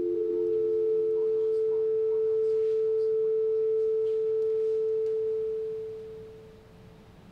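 Theremin holding one long, pure, sine-like note that fades out about six seconds in.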